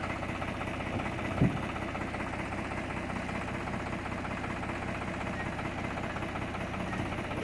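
Farm tractor's diesel engine idling steadily, with a single sharp knock about a second and a half in.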